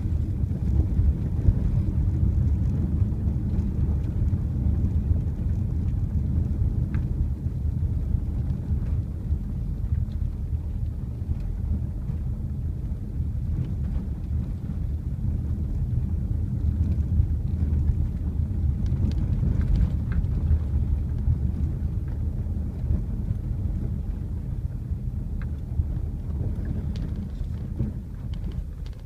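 Car driving on a rough gravel road, heard from inside the cabin: a steady low rumble of tyres and engine with a few faint clicks. It gets quieter near the end as the car slows.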